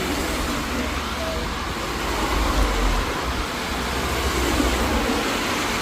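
Road traffic on a wet street in the rain: a steady hiss and low rumble of passing vehicles.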